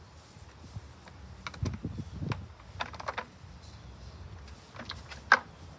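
Scattered light clicks and knocks of hands and parts being handled on a push mower's engine, with one sharper click about five seconds in.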